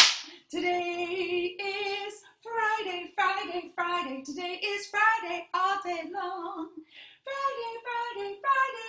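A single high voice singing a melody in short phrases, with no instruments. A sharp click at the very start.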